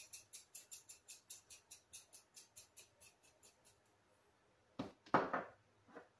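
Small glass seasoning shaker being shaken over chicken breasts, a quick even rattle of about five shakes a second that fades out after about four seconds. Near the end come a few short, louder knocks and rustles.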